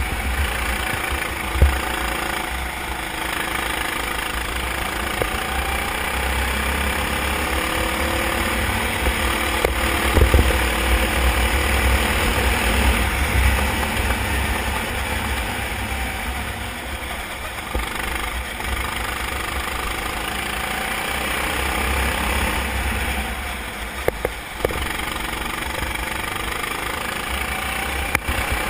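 A racing kart's engine running at speed, its pitch rising and falling through corners and straights, under heavy wind rumble on the onboard microphone. A few sharp knocks stand out, about two seconds in, around ten seconds, and near the end.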